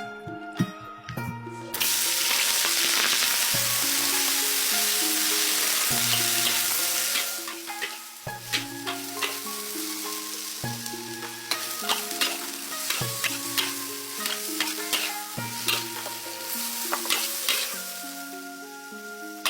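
Food sizzling in hot oil. A loud hiss starts about two seconds in and eases after about seven seconds. Then comes stirring, with scattered scrapes and clicks of a utensil in the pan, over background music.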